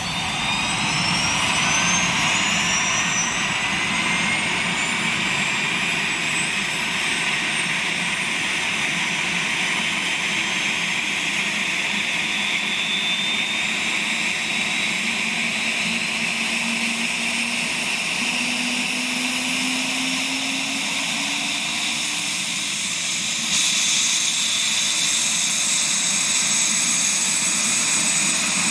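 Twin-turbine AS365 Dauphin air-ambulance helicopter running on the ground with its rotor turning. The turbine whine rises in pitch over the first several seconds as the engines spool up, then holds steady over the rotor noise. The sound grows louder and brighter about 23 seconds in.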